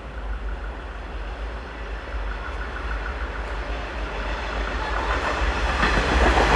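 A train approaching on the rails, its wheels running over the track and growing steadily louder.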